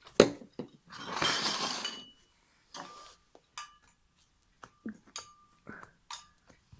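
Light clinks and knocks of slime-making containers and utensils being handled on a table, with a sharp knock at the start and a noisy burst lasting about a second, about a second in.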